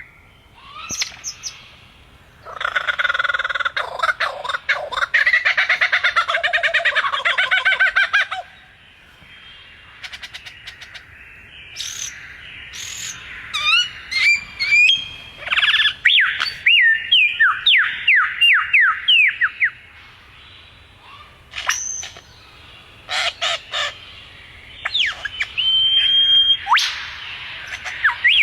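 A bird calling: a long, harsh, rapid chattering run, then a varied string of short whistled chirps and falling notes, with one held whistle near the end.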